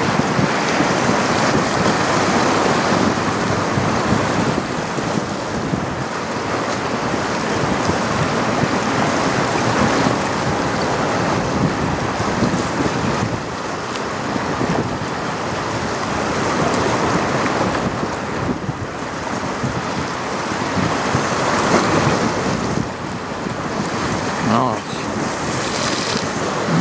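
Wind buffeting the microphone over river water washing against the shore, a steady noisy rush that swells and eases.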